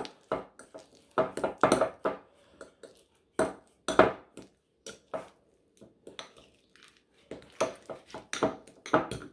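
A fork scraping and clinking against a small glass bowl as soft butter is mashed together with chopped herbs, in irregular strokes that thin out about halfway through.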